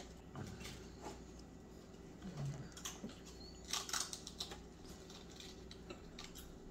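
Faint, scattered clicks and taps of wooden chopsticks against a plastic sushi tray while a roll is picked up, with a quick cluster of clicks just past the middle.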